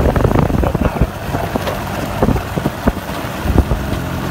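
Wind buffeting the microphone: a loud, rough rumble with many short knocks and crackles through it.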